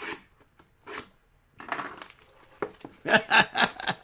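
Trading-card packs and cards being handled on a table: short rustles and sharp clicks, busiest and loudest near the end.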